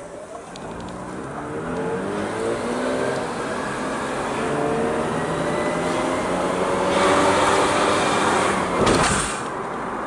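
Mazda RX-8's two-rotor rotary engine pulling hard, heard from inside the cabin. The revs climb over the first few seconds, hold under load, and fall away sharply near the end.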